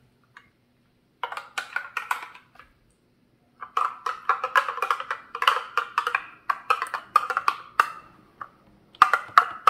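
A metal utensil tapping and scraping against a small glass cup in quick runs of sharp taps, knocking ketchup out of the cup.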